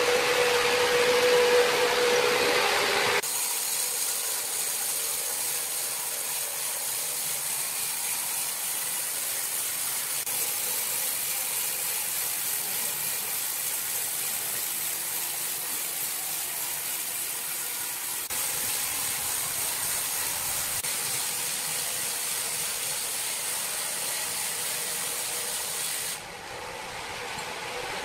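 Horizontal band sawmill cutting through a large ironwood log: a steady machine hum with a tone at first, then a steady high hiss from the blade in the wood. The sound changes abruptly about three seconds in and again near the end, where the hum returns.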